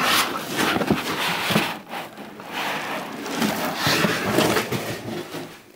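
A large cardboard shipping box being tipped and pulled off its contents: cardboard scraping and rustling, with foam packing blocks rubbing, in irregular bursts.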